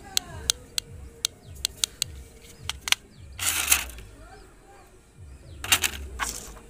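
Handling noise from a small plastic toy remote control and its clear plastic blister packaging: a run of sharp clicks over the first few seconds, then two short crinkling rustles.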